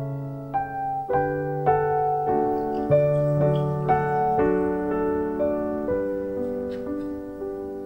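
Soft piano background music: a slow melody of sustained notes.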